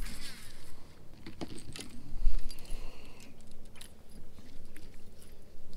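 Fishing tackle being handled on a boat deck: scattered clicks and light rattles of a baitcasting rod and a spinnerbait, with a dull knock about two seconds in.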